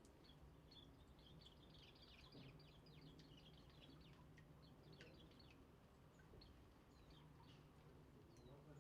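Small wild birds chirping faintly, a quick run of high, short twittering notes about a second in, then scattered single calls.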